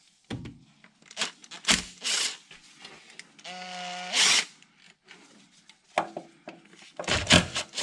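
Hand tools and engine parts clicking, knocking and scraping in irregular bursts during spark plug and coil pack work. A brief steady tone comes about halfway through, and a louder cluster of clicks and scraping near the end.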